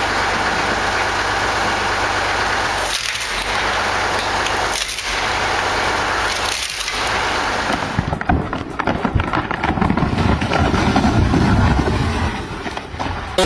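Wood-processing machine running steadily, briefly dropping away three times, then wood cracking and splintering in a dense run of cracks from about eight seconds in.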